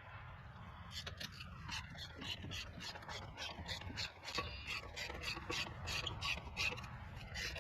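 Lug nuts being run onto the wheel studs of a Ford F250 front hub with a hand tool: quick, repeated rasping strokes, about three or four a second, starting about a second in.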